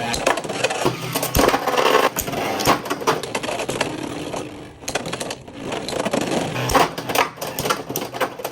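Beyblade spinning tops clattering and clashing in a plastic stadium: a rattling whirr broken by many sharp, irregular clicks of hard plastic striking plastic.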